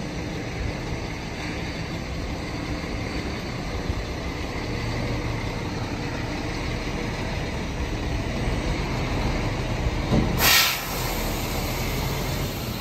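Diesel engine of a semi-truck running as the loaded rig moves slowly, with a short, loud hiss of compressed air from the truck's air system about ten seconds in.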